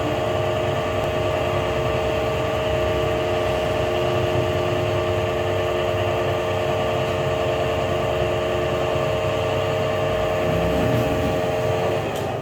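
A pipe rolling machine running: a steady mechanical hum with a constant whine, cutting off shortly before the end.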